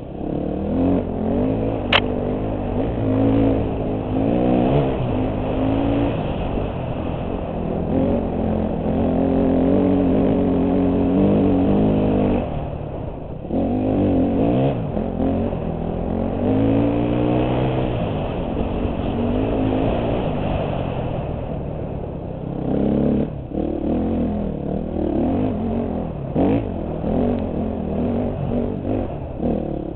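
2008 KTM 250 XC-F dirt bike's single-cylinder four-stroke engine, heard from the rider's helmet, revving up and down again and again as the throttle opens and closes on a trail ride. A sharp click about two seconds in, and the engine briefly drops away near thirteen seconds.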